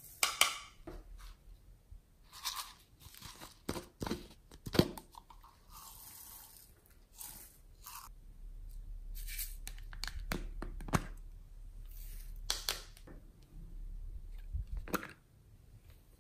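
Hands handling slime ingredients: scattered crackles, clicks and rustles as a small plastic container of toppings is emptied over a glass dish of slime, clay and foam beads.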